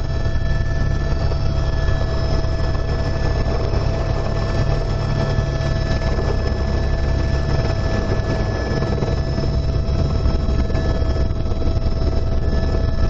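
Helicopter running steadily: a heavy low rumble with several steady whining tones over it.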